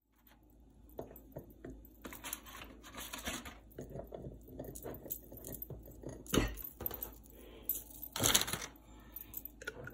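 Foil packaging and a thin plastic cookie tray crinkling and crackling in the hands as coconut cookies are taken out and set into a glass jar, with small clicks and knocks of cookies against the glass. The rustling comes in bursts, loudest about two to three seconds in and again near the end.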